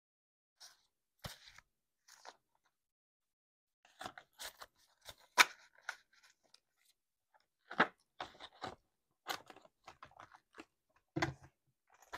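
Paper banknotes rustling and crinkling in short bursts as a thick stack of cash is handled and slid into a pink ring-binder wallet. There are sharp taps among the rustling, the loudest about five and a half seconds in.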